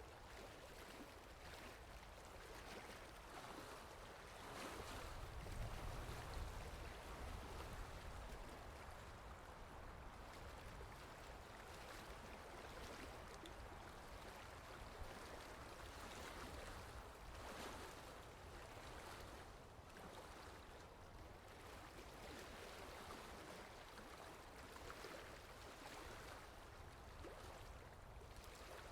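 Lake water gently lapping and splashing, faint and unbroken. A low rumble swells for a few seconds near the start.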